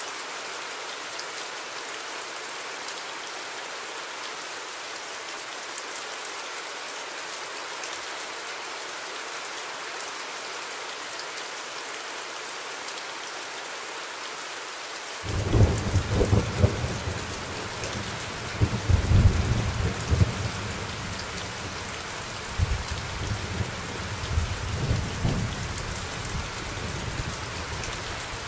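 Steady rain falling. About halfway through, thunder breaks in suddenly as a deep rolling rumble that swells and fades several times.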